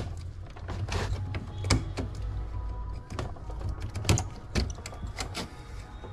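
Irregular clicks and knocks of plastic printer parts being handled while the printhead is fitted back into a Brother MFC inkjet printer, over background music.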